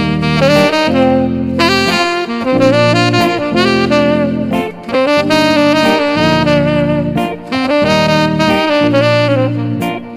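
Instrumental jazz-style background music, with a saxophone playing the melody over a bass line that changes note about once a second.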